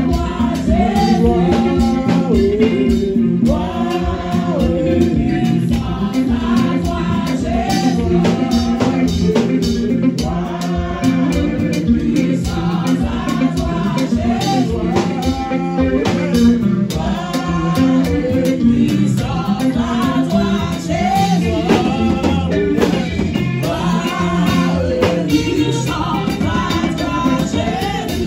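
Congregation singing a worship song together, accompanied by an electric keyboard and guitar over a steady beat.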